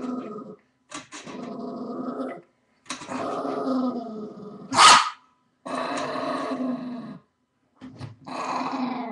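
Pet dog growling in a string of about five long growls, each a second or more, with short pauses between them. One short, loud bark comes about five seconds in.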